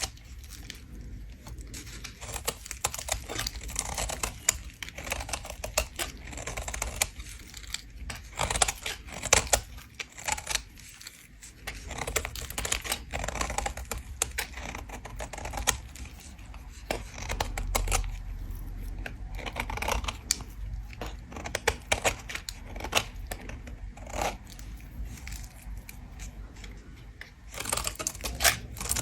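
Soap being scraped: a dense, irregular run of crisp, crackling scrapes that goes on without a break.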